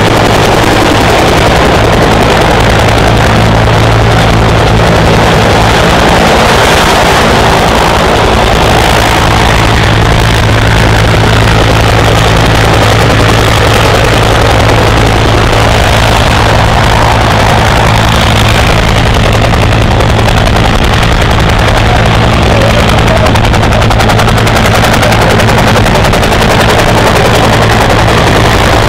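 Bell UH-1 Iroquois (Huey) helicopter flying low, its two-bladed main rotor beating out a loud, rapid chop over a steady engine drone.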